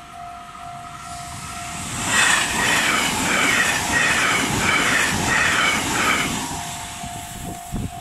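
JR 383 series limited express electric train passing close by at speed. It builds to a loud passing noise about two seconds in and fades after about six seconds. The level crossing's electronic warning bell rings steadily throughout and is drowned out while the train goes by.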